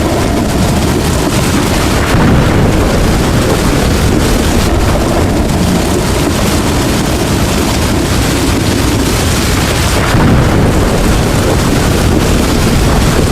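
Heavy rain falling steadily, with deep rumbles of thunder underneath that swell about two seconds in and again near ten seconds.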